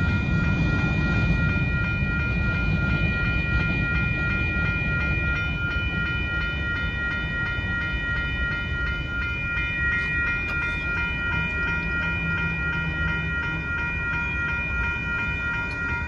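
Railroad crossing bell ringing steadily over the low rumble of a Union Pacific grain train's hopper cars rolling away from the crossing.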